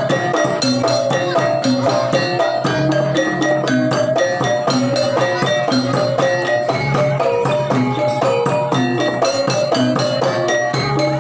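Javanese gamelan music of the kind that accompanies a jaranan (kuda lumping) horse dance: many struck metal notes ringing in a dense, even rhythm, loud and without a break.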